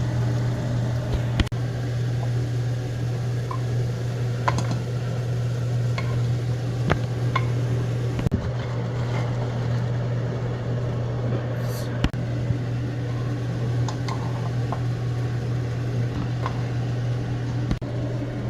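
Steady low hum of a kitchen appliance such as a fan or stove, with scattered sharp taps and clicks of a utensil against a pan.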